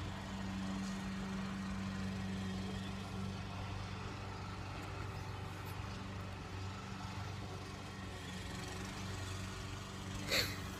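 Steady low mechanical hum of a running motor or engine, even throughout, with one brief short sound near the end.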